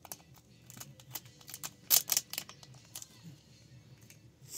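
Scattered small clicks and crackles of a roll of tape being handled, with a louder cluster about two seconds in.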